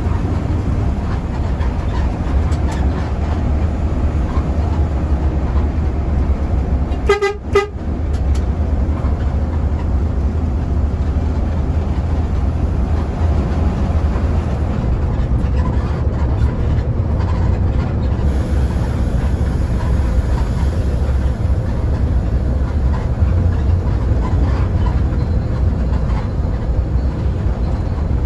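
Steady low drone of a Mercedes-Benz OH1526 bus engine and road noise, heard from inside the moving bus. About seven seconds in comes a short burst of musical telolet horn notes.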